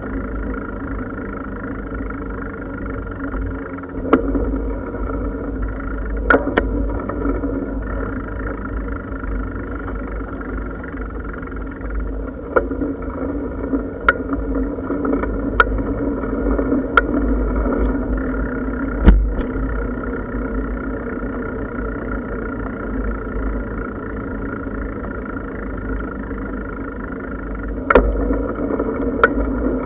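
Bicycle riding: a steady, muffled rumble of tyres and wind, with occasional sharp knocks from bumps.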